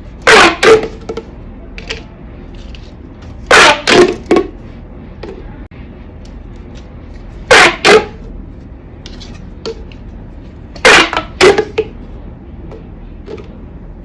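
Marbles clacking loudly against a HABA wooden marble run, in four sharp double knocks about every three and a half seconds, each with a brief ring.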